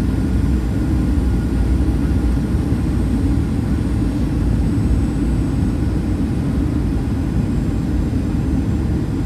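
Cabin noise inside a Boeing 737-900 airliner: a steady low rumble of its engines and the airflow.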